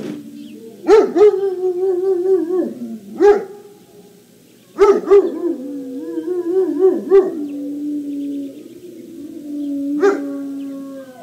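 A Great Dane pup howling and whining in long, wavering cries, several of them opening with a sharp yelp.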